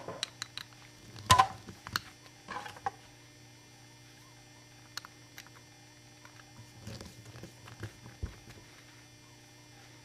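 Scattered light metallic clicks and taps of a screwdriver driving small self-tapping screws into a machined microphone chassis part, the loudest cluster about a second in.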